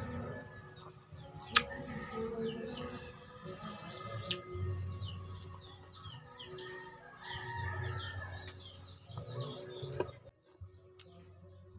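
Many small birds chirping in quick, repeated downward-sweeping calls, over eating sounds of chicken feet being chewed, with a sharp click about a second and a half in and another about four seconds in. The sound drops off abruptly about ten seconds in.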